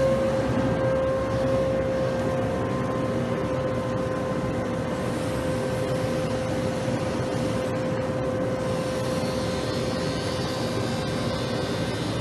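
ST40-240E battery-powered street sweeper running with a steady whine over an even rushing noise.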